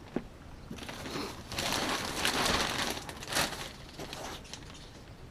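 Loose soil being scraped and moved, a gritty rustle of about two seconds in the middle, after a single sharp click near the start.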